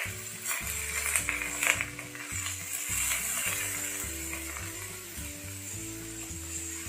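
Hot oil sizzling in a nonstick frying pan as cubes of raw banana are dropped in by hand, with light taps as pieces land and are pushed around.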